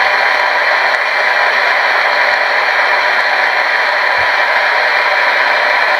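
Loud, steady static hiss from a portable radio being used as a ghost-hunting spirit box.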